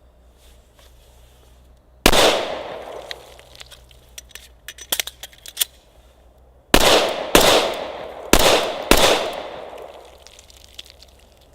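Glock 21 Gen 4 .45 ACP pistol fired: a single shot about two seconds in, then four shots in two quick pairs, each report trailing off over about a second. A few fainter sharp clicks come in between.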